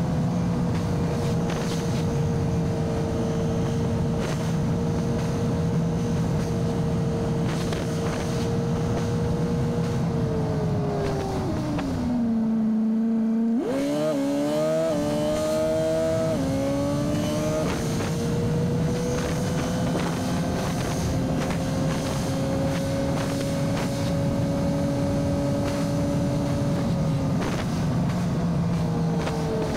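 Pickup truck engine and road noise heard from inside the cab while driving. It runs steadily at cruising speed. Near the middle the engine note drops as the truck slows almost to a stop, then climbs in several quick steps through the automatic's gear changes as it pulls away, and settles back into a steady cruise.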